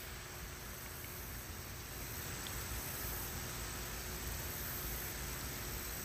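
Faint, steady outdoor background hiss with a faint low hum and no distinct events.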